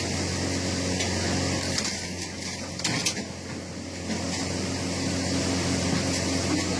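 Firewood processor's engine running steadily with a low hum, with a single sharp knock about three seconds in.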